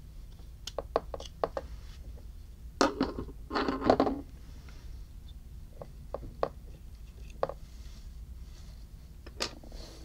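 Small sharp metal clicks and taps of a screwdriver and small parts against the brass mechanism of a vintage Ronson Triumph lighter as its fulcrum screw is pushed out. A louder, longer stretch of handling noise comes about three to four seconds in.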